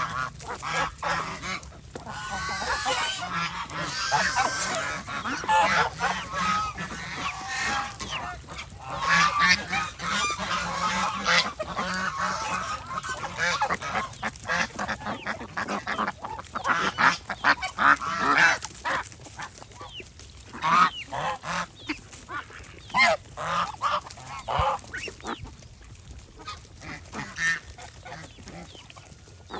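A flock of domestic geese honking, many calls overlapping for most of the stretch, then thinning to scattered single honks near the end.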